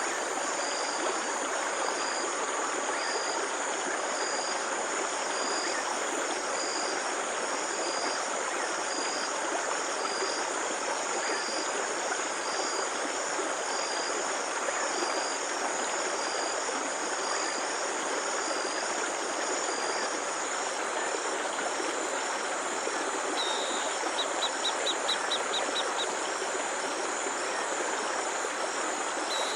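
Steady rush of flowing water, with crickets chirping over it at an even rhythm. Twice, near the end, a short rapid ticking trill sounds.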